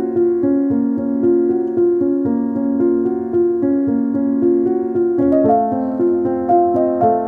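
Background piano music: a gentle keyboard melody of evenly paced notes, moving to a new chord about five seconds in.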